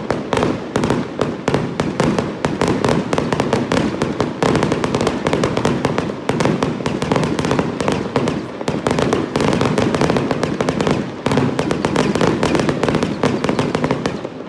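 Fireworks going off in a rapid, unbroken barrage of loud cracks and bangs, many a second, that stops right at the end.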